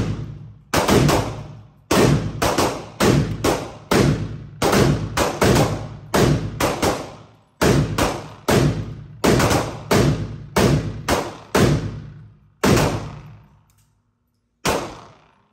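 Rapid, irregular gunfire: shots from a Hi-Point 995 9mm carbine with others mixed in, well over ten in about thirteen seconds, each echoing and dying away. After a short pause, one more shot comes near the end.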